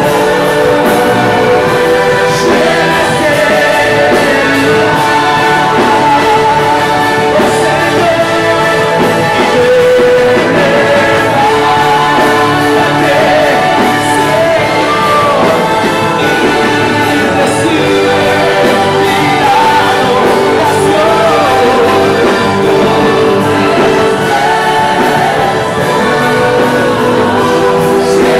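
Loud worship music: voices singing over instruments.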